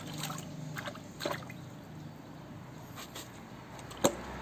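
Light water sloshing and dripping in a plastic basin as a wet puppy is washed, in a few short splashes, with a sharp click about four seconds in.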